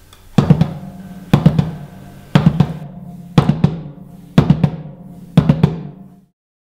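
Drum beat of background music: a quick cluster of drum hits with a low ringing tone, repeated about once a second, six times, cutting off suddenly near the end.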